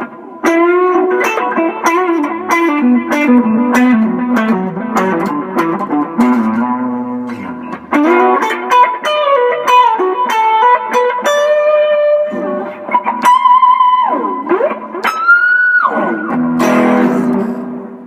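Carvin AE185 semi-hollow electric guitar on its middle pickup, played through a Pigtronix Aria Disnortion pedal into a Peavey Backstage 50 solid-state amp. It plays picked single notes in a descending run and some held notes, with a deep swooping dip in pitch and back near the end. A final chord rings and fades out.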